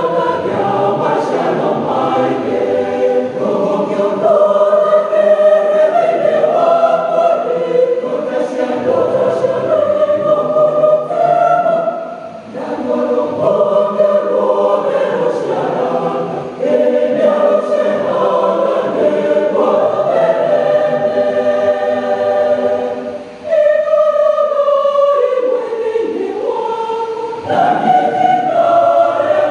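Mixed church choir of men and women singing together, with a few short breaks between phrases.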